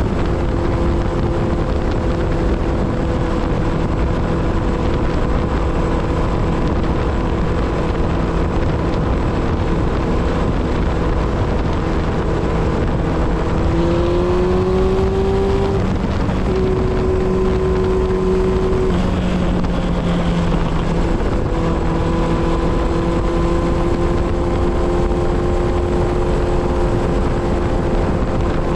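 Kawasaki Z1000 inline-four engine and exhaust cruising at steady highway revs. About halfway through the revs rise, break briefly, hold higher for a few seconds, then settle back to the earlier steady pitch.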